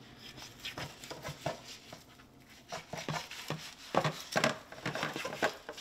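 Fillet knife working a bluefish on a plastic cutting board: a string of irregular short taps and scrapes of the blade on the board and wet flesh being handled, busiest about four seconds in.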